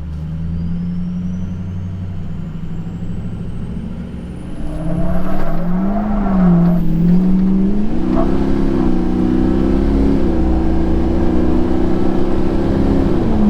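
Ford 6.0 Powerstroke turbodiesel in a lifted F-250 launching hard from a stop. After a few seconds of steady running, the engine note jumps in loudness about five seconds in and climbs, dipping and stepping as the gears change, then drops back near the end. Too much boost broke the 40-inch tires loose on takeoff.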